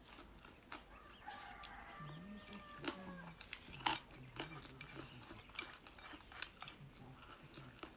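Close-up chewing and biting of boneless chicken feet, with sharp scattered crunchy clicks. A drawn-out chicken call sounds in the background about a second in.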